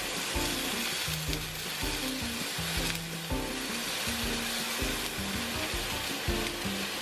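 Steak sizzling as it is grilled again to reheat it, with background music carrying a stepping bass line.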